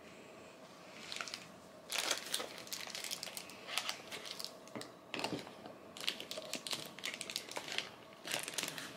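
Irregular rustling and crinkling handling noise, in uneven bursts beginning about two seconds in.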